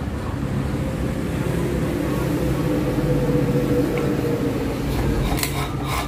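Industrial four-thread overlock (serger) machine running with a steady hum as it sews a test seam, with a few sharp clicks near the end.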